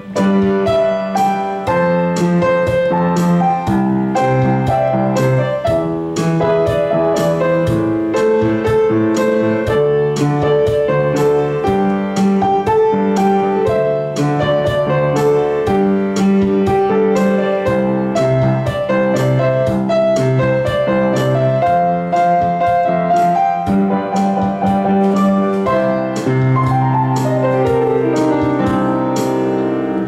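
Piano playing a pop ballad: a right-hand melody over a left-hand bass-and-chord accompaniment in a steady rhythm, ending in a descending run of notes near the end.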